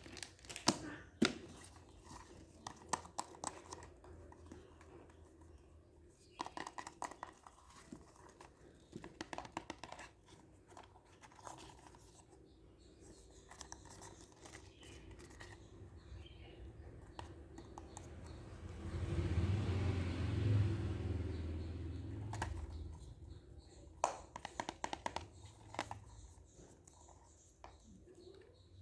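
Packaging being unwrapped by hand: crinkling, tearing and scratching with many small irregular crackles and clicks. Past the middle comes a louder, lower rustle lasting a few seconds.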